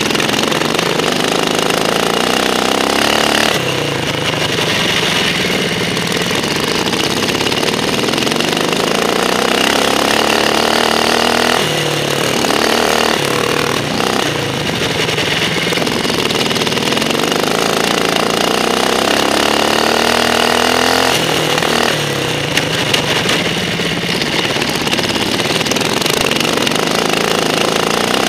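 Racing ride-on lawn mower engine running hard. The revs climb and fall back again and again, dropping sharply several times.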